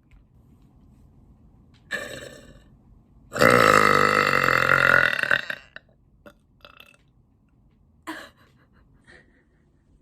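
A woman's long, loud burp lasting about two seconds, about three and a half seconds in. A brief burst comes a second before it.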